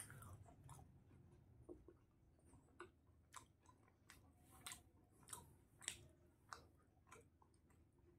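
Faint mouth sounds of a person chewing spicy fried chicken with the mouth close to the microphone: soft wet clicks and smacks, coming about every half-second in the second half.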